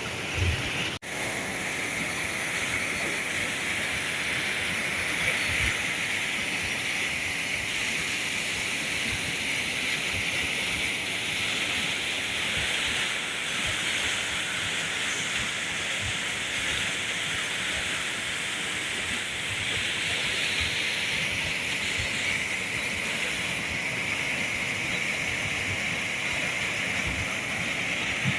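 River water rushing steadily over rapids on the Pike River, a continuous hiss that swells and eases slightly. A short thump and a brief dropout come about a second in.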